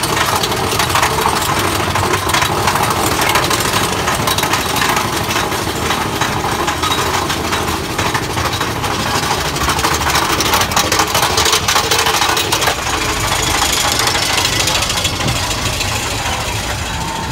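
Big Thunder Mountain Railroad mine-train roller coaster running along its track, a loud, continuous rattling and clattering of the cars and wheels heard from a seat aboard the train.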